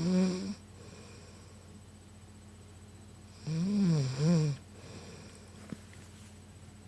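A woman snoring loudly in sleep: one snore ends about half a second in, and another comes about three and a half seconds in and lasts about a second, its pitch rising and falling.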